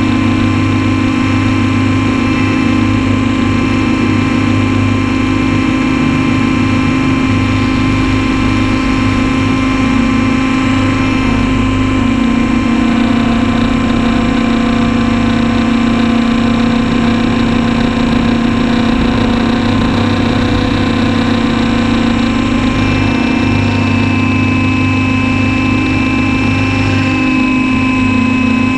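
Radio-controlled copter running and hovering, heard up close from a camera mounted on it: a loud, steady hum with a high whine over it that hardly changes in pitch.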